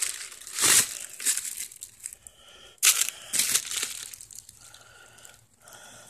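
Clear plastic wrapping and a cardboard box crinkling and rustling in irregular bursts as an inline fan is handled and pulled out of its packaging. The loudest bursts come about three seconds in.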